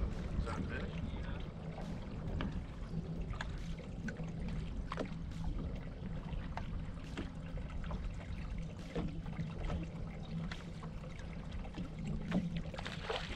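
Small waves lapping and slapping against a bass boat's hull in irregular little ticks, over a steady low hum.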